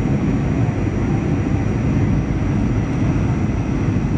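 Steady cabin noise inside a Boeing 737-800 from a seat over the wing: the deep rumble of its CFM56-7B engines and rushing airflow, with a faint, steady high whine, during the approach to landing.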